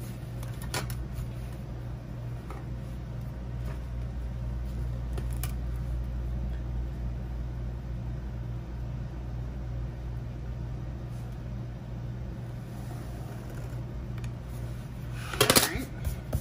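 Steady low hum of room noise, with a few faint taps as a clear plastic ruler and pen are handled on a spiral-bound paper planner. About fifteen seconds in, a short loud rustle as a hand moves across the planner's page.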